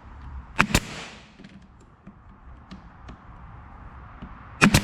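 Brad nailer firing nails into small wooden slats: two sharp double cracks, one about a second in and one near the end.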